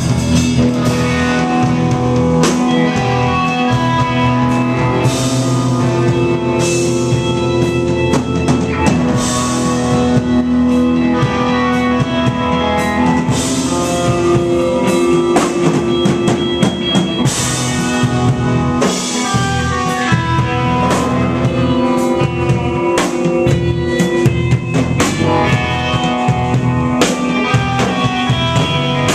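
Live band playing a rock song: drum kit and guitar, with long held notes over the beat.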